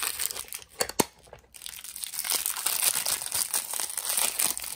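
Pink plastic toy wrapper crinkling and tearing as it is handled and pulled open, with two sharp plastic clicks about a second in.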